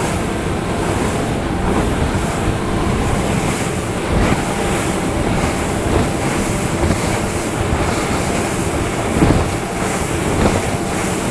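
Motorboat running underway: a steady engine drone under rushing wind and water, with a few short thumps, the loudest about nine seconds in.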